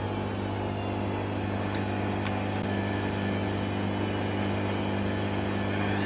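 Hotpoint Aquarius WMA58 washing machine running with a steady low drone from its turning drum, the drum bearings very badly worn. A few faint ticks come about two seconds in.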